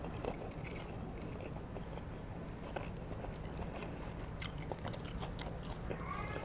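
A person chewing McDonald's french fries close to a clip-on microphone, with scattered small mouth clicks over a faint steady low hum.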